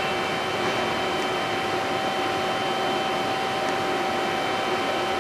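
Steady mechanical hum of a powered-up Fryer MC-60 vertical machining center standing between axis moves, with a constant whine over it.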